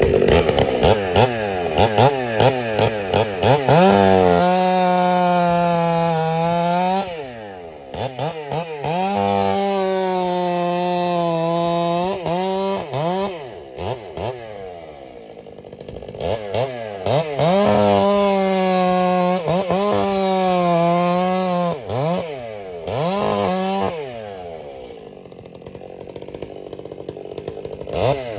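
Ported Stihl 661C two-stroke chainsaw, on a 24-inch bar with full-comp chain, revving up and holding a steady high pitch while cutting wood in several passes. It drops back to idle twice, about halfway through and again near the end, then revs up once more.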